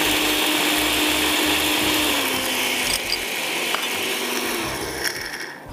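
Electric blender's small grinding jar running, its motor whirring steadily as it grinds a wet paste of whole spices a second time. The sound thins after about two seconds, and the motor winds down just before the end.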